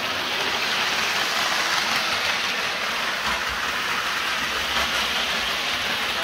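Hornby Virgin 125 HST model train running on the layout's track: a steady whirring hiss of its motor and wheels on the rails.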